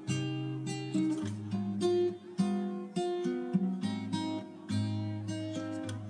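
Background music played on acoustic guitar: a run of picked notes over low bass notes.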